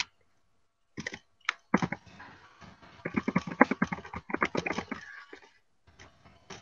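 Typing on a computer keyboard: a few separate keystrokes, then a quick run of clicking keys lasting about four seconds.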